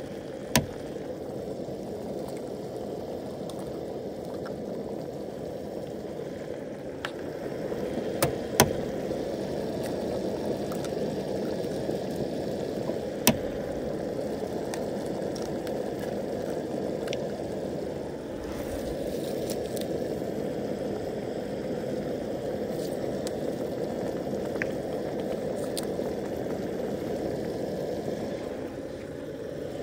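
Tomato sauce simmering in a cast-iron skillet over a propane camp-stove burner, a steady bubbling hiss. A few sharp taps come as eggs are cracked.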